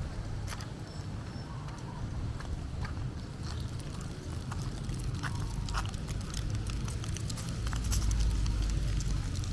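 Outdoor street ambience: a steady low rumble with light clicks and taps scattered irregularly through it, swelling a little near the end.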